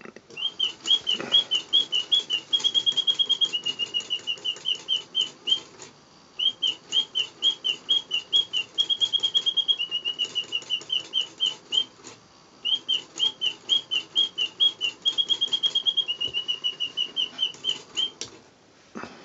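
Mechanical singing-bird automaton whistling a birdsong: three identical phrases of quick, bright chirps, each a few seconds long with short pauses between, running from bending chirps into a steady trill and then lower repeated notes. A click as its lever is worked at the start and again near the end.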